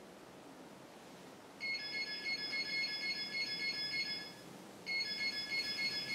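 An electronic ringing tone, trilling rapidly, sounding twice: a ring of about three seconds starting a little over a second and a half in, a brief break, then a second ring that carries on through the end.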